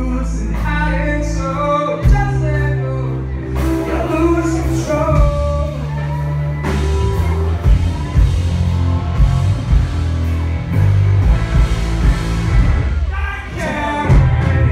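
Live rock band playing electric guitars, with a male lead vocal for the first few seconds and again near the end, and an instrumental stretch without singing in between.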